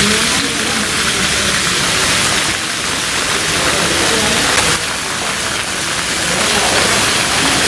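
Heavy rain falling steadily, with runoff water pouring and splashing on the ground.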